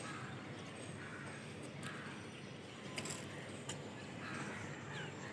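Faint outdoor background: a steady low hum with a few light taps, and distant bird calls near the end.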